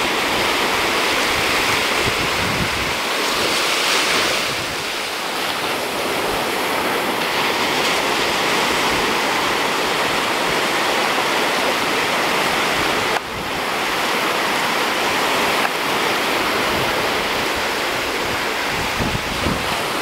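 Surf breaking and washing up a sandy beach: a steady, fairly loud rushing of waves.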